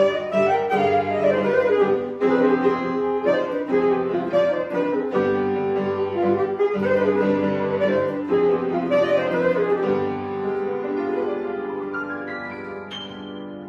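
Alto saxophone and grand piano playing the closing bars of a classical duo piece. A busy melody over piano chords thins out and grows quieter from about ten seconds in, ending on a held high note that dies away.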